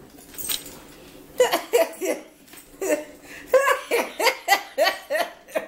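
A person laughing in a run of short bursts, starting about a second and a half in.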